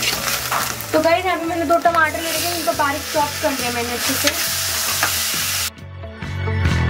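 Onion-and-spice masala sizzling as it fries in a steel kadai, with a steel ladle scraping and stirring it as chopped tomatoes go in. A brief wavering tune of background music plays over it for a few seconds, and the frying cuts off suddenly near the end.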